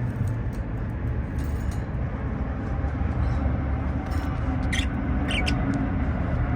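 Steady low rumbling background noise, with two or three short high budgie chirps about five seconds in.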